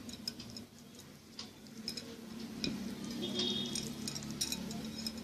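Faint scattered clicks and soft handling noises from hands working a raw rice-stuffed pigeon, over a steady low hum.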